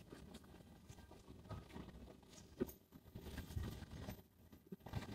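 Faint street background with a low rumble and a few light taps, one about two and a half seconds in.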